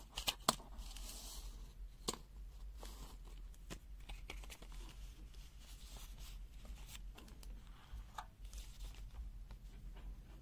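Faint handling noise as resistors and multimeter test probes are moved between measurements. A few sharp clicks come in the first two seconds, followed by soft rustling and small taps.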